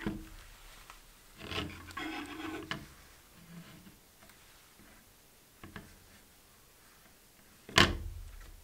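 Plastic phone holder handled by gloved hands: a click as its panel goes into the plastic base, then plastic scraping and rubbing for about a second and a half, a small tap, and one loud knock near the end.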